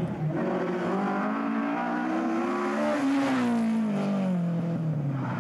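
Rally car engine under hard acceleration through a stage corner. The engine note climbs for about three seconds, then falls away as the car goes off down the road.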